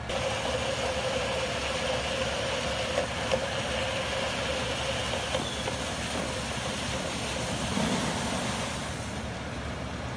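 Fire hose line being charged from a fire engine: a steady rushing hiss with a steady hum underneath starts abruptly and eases off about nine seconds in, over the engine's running.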